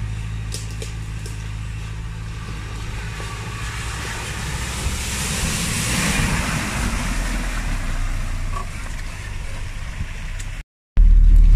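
An off-road 4x4's engine running slow and steady, close to idle, with a hiss that swells and fades about five to seven seconds in. Near the end the sound cuts out for an instant and comes back as a louder, deeper engine rumble.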